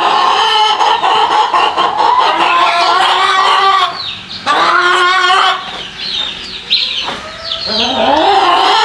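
Domestic hens cackling loudly in overlapping calls, the kind of cackle the owner takes as a sign that a hen has laid or is laying an egg.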